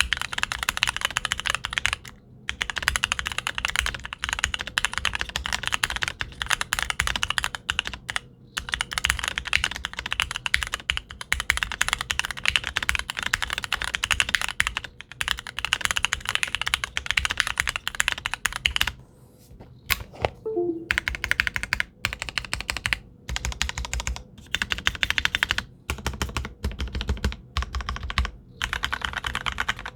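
Custom mechanical keyboard with lubed Gateron Milky Yellow linear switches on a POM plate in an acrylic case, capped with ePBT keycaps, being typed on quickly. Fast runs of keystrokes are broken by short pauses, with a longer lull about twenty seconds in.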